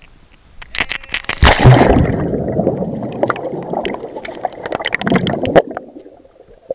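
A body plunging into a pond with a splash about a second and a half in, recorded from an action camera inside a waterproof housing, then muffled underwater bubbling and churning that dies away just before the end.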